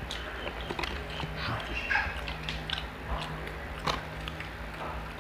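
Eating sounds: biting and chewing grilled food off bamboo skewers, with a few sharp clicks and smacks.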